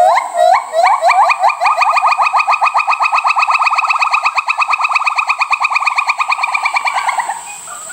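An animal call: a long series of short, upward-sliding pitched notes. They start a few a second, quickly speed up into a fast, even trill lasting several seconds, then fade out near the end.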